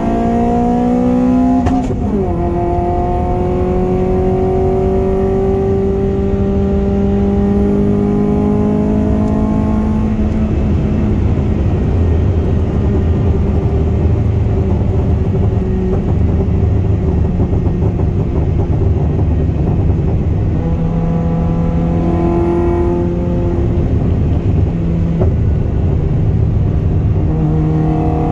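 Honda F20B 2.0-litre DOHC VTEC four-cylinder, heard from inside the car's cabin, revving up under acceleration. About two seconds in, the pitch drops sharply with an upshift, then climbs slowly as rougher road noise builds, and rises again near the end.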